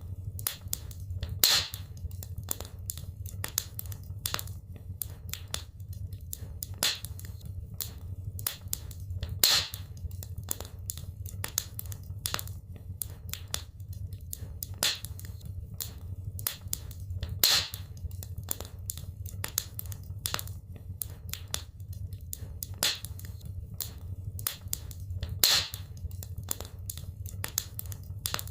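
Wood fire burning in a fireplace: constant crackling with sharp pops over a steady low rumble of the flames. A few louder pops stand out, roughly every eight seconds.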